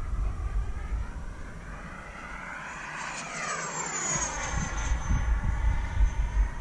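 Freewing F-22 Raptor's 90 mm electric ducted fan whining as the jet makes a pass: the pitch climbs as it approaches, peaks about three seconds in, then drops as it goes by. A low rumble of wind on the microphone runs under it.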